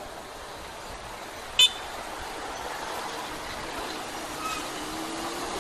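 A vehicle horn gives one short toot about one and a half seconds in, over steady wind and road noise from a moving motorcycle.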